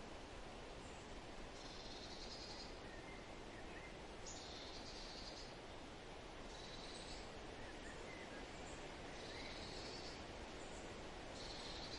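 Forest ambience: a steady hiss under a high, rapidly pulsed trill about a second long that repeats roughly every two seconds, with a few faint short chirps in between.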